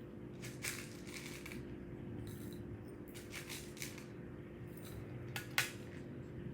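Chocolate granola being poured from its small plastic cup, the dry clusters rustling and rattling in several short spells, with a sharper rattle near the end.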